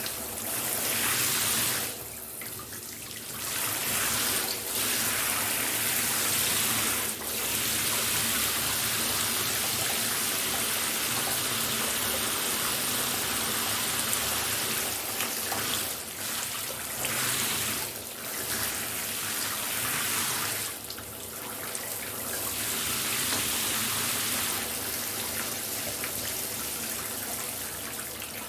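Shower running: a steady hiss of spray falling in a small room, dipping briefly a few times as the flow is blocked or shifts.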